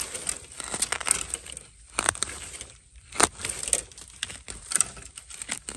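A digging tool chopping and scraping into loose soil and dry bamboo-leaf litter around a wild bamboo shoot. The blows come as an irregular series of sharp chops, with soil and debris crackling between them.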